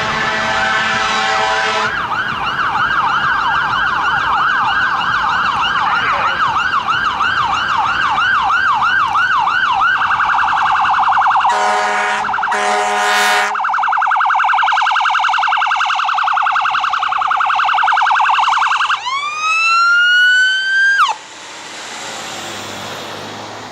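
Ambulance's Whelen electronic siren and air horns. An air-horn blast opens, then the siren runs a yelp sweeping up and down about twice a second and switches to a much faster pulsing warble. Two more short air-horn blasts come in the middle; with a few seconds left a rising wail starts and cuts off suddenly, leaving traffic noise.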